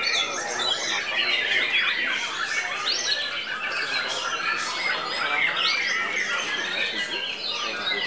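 White-rumped shamas singing in a contest: many birds at once in a dense, unbroken tangle of quick whistles, glides and harsh chattering notes.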